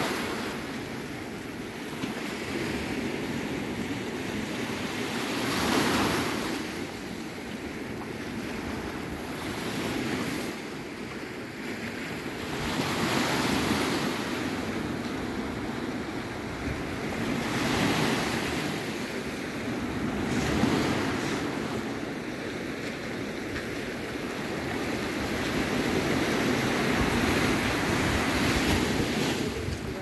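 Small waves of the Mediterranean Sea washing onto a sandy beach: a steady surf hiss that swells and eases every few seconds as each wave breaks and runs up the sand.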